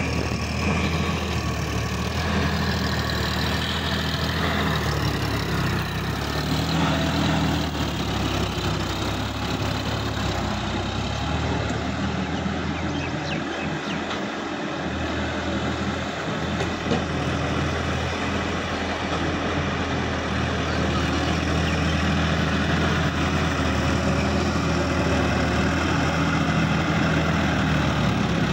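Sonalika DI-50 RX tractor's diesel engine running steadily under load as its rotary tiller churns through a flooded, muddy field, the engine easing a little around halfway as the tractor moves farther off.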